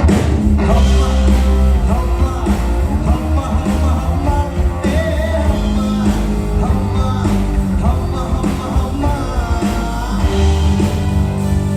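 Live band music amplified through a PA: a sung or played melody over guitar and a heavy bass line.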